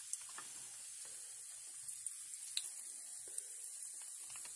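Battered oysters frying in a pan of hot oil: a steady sizzle with an occasional small pop.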